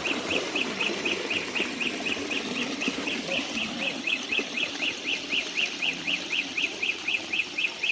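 Water pouring from a spout and running down a small rocky channel, under a rapid, even series of high chirps, about five a second.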